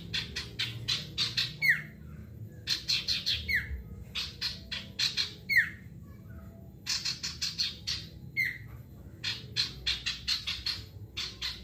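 A male sirtu songbird singing in rapid volleys. There are about five phrases of quick, sharp repeated notes, each ending in a short downward slur, with brief pauses between them.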